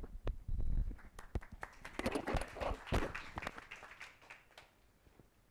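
Small audience applauding, a patter of many hand claps that thins out and dies away about four and a half seconds in, with a low rumble in the first second.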